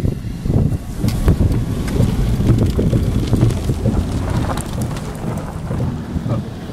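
Strong gusty wind buffeting the microphone over the rumble of a car, with irregular knocks and bumps from the camera being handled as it is carried into the vehicle.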